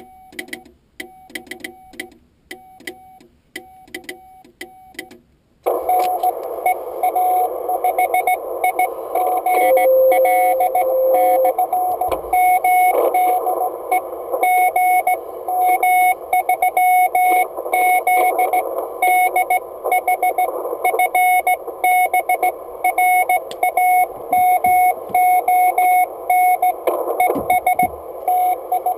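Morse code on an Icom IC-701 HF transceiver: for about the first six seconds clean dot-dash beeps with a click on each element over a quiet background, the operator's own sending heard as sidetone. Then the receiver cuts in with a band of hiss, and the other station's Morse beeps at a similar pitch through the noise, with a brief steady lower tone around ten seconds in.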